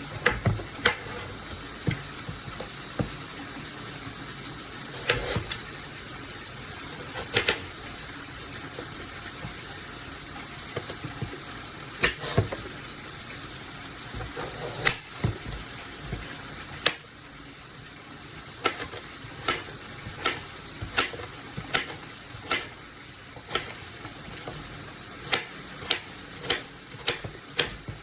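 Kitchen knife cutting through food and knocking on a cutting board: sharp, irregular strokes that come faster near the end, over a steady hiss.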